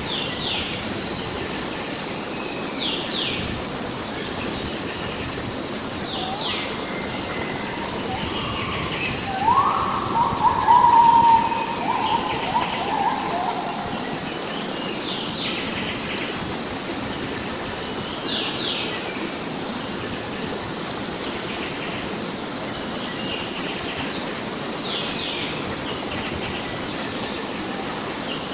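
Natural outdoor ambience: a stream running steadily under a high, steady insect drone, with small birds giving short, sharp chirps every few seconds. About ten seconds in, a louder, lower call lasts a few seconds.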